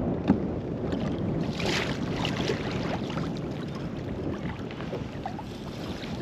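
Wind buffeting the microphone and water splashing around a kayak, with a short sharp knock about a third of a second in.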